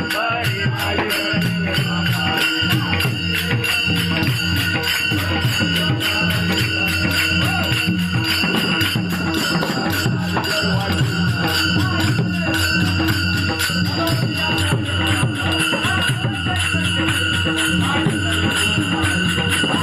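Pakhawaj barrel drum played in a fast, steady rhythm, its deep strokes under a dense, continuous jingling of small hand cymbals.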